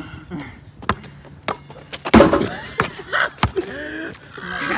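A basketball bouncing on outdoor asphalt, a sharp thud roughly every second, with one louder slam a little past two seconds in.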